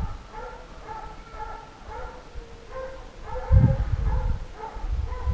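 Fox-hunting scent hounds baying over and over while running a fox's trail, short repeated calls. A low rumble, loudest a little after halfway, runs beneath them.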